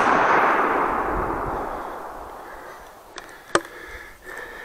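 The echo of a shotgun blast rolling through the forest and fading away over about three seconds. About three seconds in come two sharp clicks, the second one loud.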